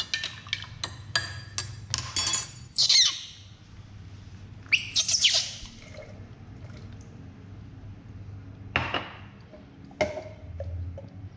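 A metal spoon clinking repeatedly against a glass as milk formula is stirred, then two high-pitched squeals from a baby monkey that rise and fall, and a couple of knocks near the end.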